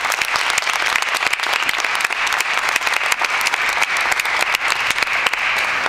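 Audience applauding, dense steady clapping from a crowd.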